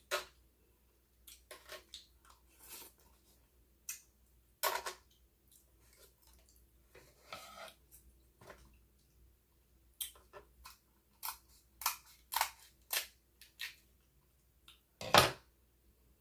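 King crab leg shells being cracked and snapped apart, mixed with chewing, in a run of short, sharp snaps and crunches with one louder snap near the end.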